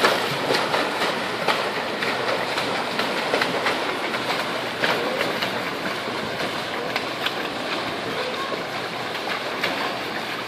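Swimmers splashing through a swimming pool, kicking and stroking: a continuous wash of churning water broken by many sharp slaps, easing slightly toward the end.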